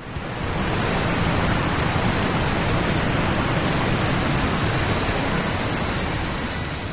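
Water-hose spray sound effect: a steady rushing hiss that starts right at the beginning and runs for nearly seven seconds, as the fire truck's water cannons put out a fire.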